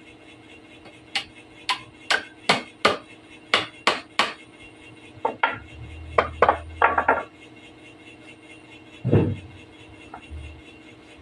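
Hammer striking a wooden table frame: a quick run of about a dozen sharp taps, then one heavier blow about nine seconds in.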